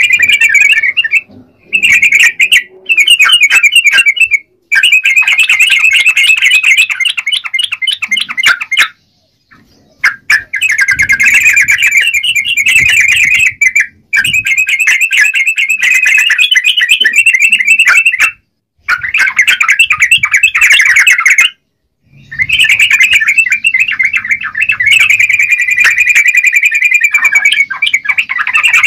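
Yellow-vented bulbul (trucukan) singing loud, rapid chattering phrases a few seconds long, broken by short pauses.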